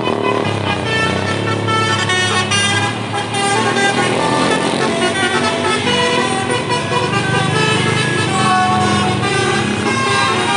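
Bus basuri (telolet) multi-tone air horn playing a fast tune of many short notes over the bus's engine running.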